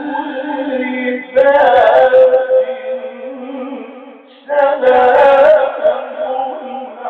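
Male reciter chanting Quran verses in the melodic tajwid style, with long held notes. Two louder phrases begin about a second and a half in and again about four and a half seconds in.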